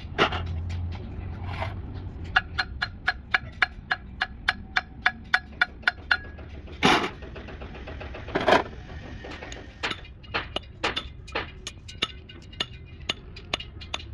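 Hand tools working on metal parts: a run of sharp metallic clicks or taps, about four a second, each with a short ringing tone, broken by two louder scraping rustles near the middle, then slower, irregular clicks.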